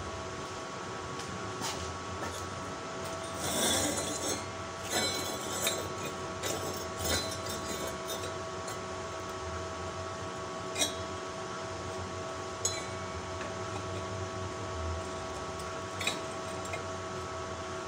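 Bent steel-strip pieces of a hexagonal paving-block mould clinking and knocking as they are handled and fitted together on a worktable. A cluster of clinks comes a few seconds in, then single sharp clinks now and then, over a steady background hum.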